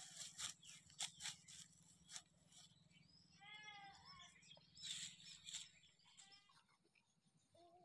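A faint animal call a little over three seconds in and a shorter one near six seconds, among a few light clicks and rustles.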